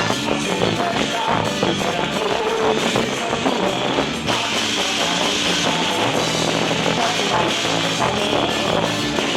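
Loud quadrilha junina dance music playing with a steady drum beat.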